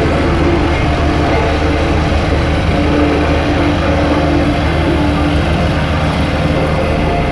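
BOMAG compactor roller's diesel engine running steadily under load, a loud, even machine drone with no pauses.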